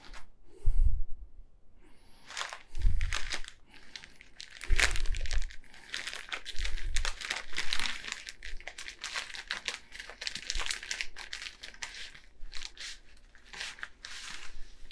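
Plastic packet of dried macaroni crinkling and rustling as it is handled and opened, with a few dull low thumps in the first half.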